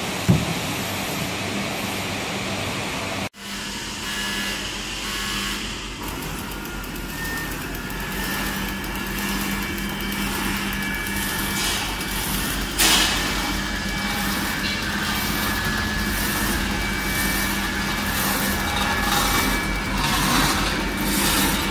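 Packaging machinery running. First comes a shrink-wrap heat tunnel's steady rushing noise. After an abrupt change about three seconds in, a horizontal flow-wrap packing machine runs with a steady hum and a regular cutting-and-sealing stroke a little more than once a second, with one louder clack about halfway.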